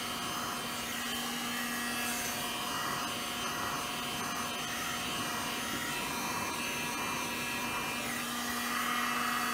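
Hot air gun blowing steadily on the back of a laptop's screen lid: an even rush of air over a constant motor hum, switched off right at the end.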